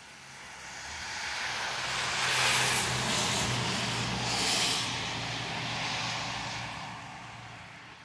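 A vehicle passing on a wet street: tyre hiss swells, peaks and then fades away, over a low steady engine hum.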